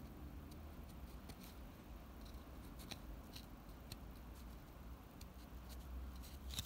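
Fingers and thumbs rubbing a strip of duct tape down onto the ridge of a small model roof: faint scratchy rubbing with scattered small ticks, over a low steady hum.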